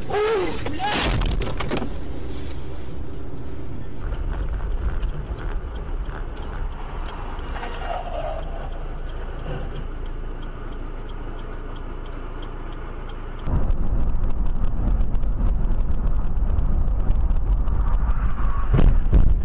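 In-car road and engine noise from dashboard cameras, changing abruptly twice as the footage cuts from one car to another. A brief squeal that rises and falls is heard near the start, and the last part is louder, a low rumble with a rapid crackle.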